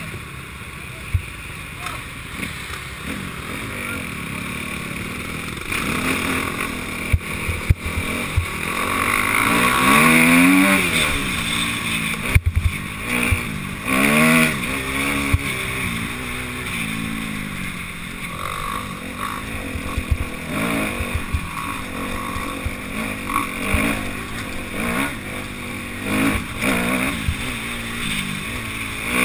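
Enduro dirt bike engine revving up and down repeatedly as it is ridden along a rough, rocky trail, with sharp knocks here and there from the bike over the rocks.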